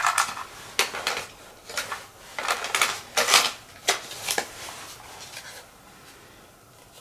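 Plastic clicks and clatters of a portable radio-cassette player and a cassette tape being handled, in a quick run of separate knocks that die down after about four and a half seconds.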